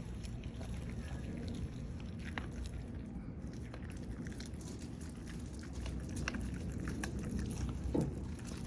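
Rottweiler chewing raw chicken, with scattered short crunches over a steady low rumble.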